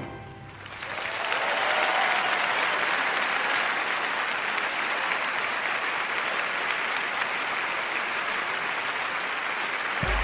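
Large auditorium audience applauding, building up about a second in and then holding steady.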